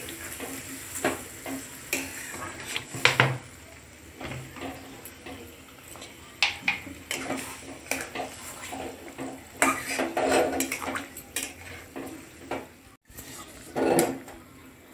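A spatula stirring vegetables in a watery mustard-paste curry in a metal kadai, with irregular scrapes and clinks against the pan.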